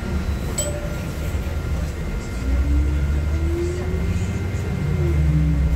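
Inside a Nova Bus LFS city bus under way: the engine and drivetrain run with a steady low rumble that gets louder about two and a half seconds in, as a whine rises in pitch and then drops back. A single short click sounds near the start.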